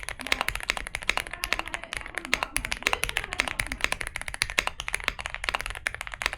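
Fast typing on a stock Zuoya GMK87 gasket-mounted mechanical keyboard with a flex-cut polycarbonate plate and factory foams: a dense, continuous run of keystrokes with a deep, thocky sound.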